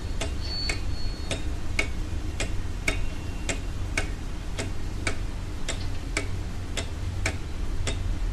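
Steady clockwork ticking, about two ticks a second, over a low, even hum.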